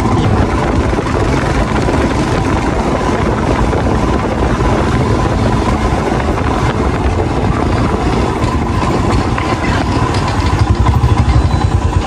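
Motorcycle engine running while riding, with a steady rush of noise; the engine's pulsing beat comes through louder near the end.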